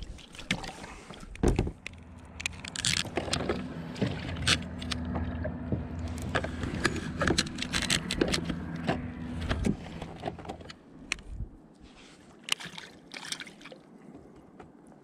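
Close clicks, scrapes and rattles of fishing tackle and a metal jig being handled aboard an inflatable kayak, with a low steady hum from about two seconds in until about ten seconds in.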